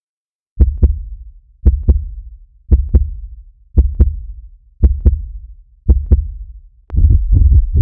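Heartbeat sound effect: after a brief silence, six slow, steady beats about a second apart, each a double thump (lub-dub). Near the end it switches to a much faster, denser pounding heartbeat.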